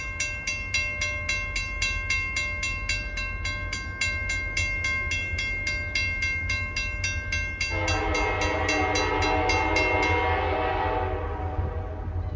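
Grade-crossing warning bell ringing rapidly, about four strikes a second. About eight seconds in, an approaching locomotive sounds a long horn chord that fades away near the end.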